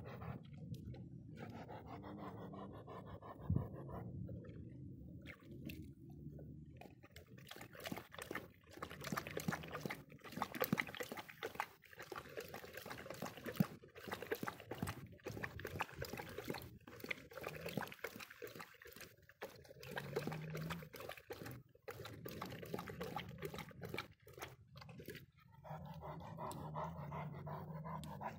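Dog lapping water from a rain puddle: fast, repeated wet laps and small splashes. Near the end the lapping stops and the dog pants.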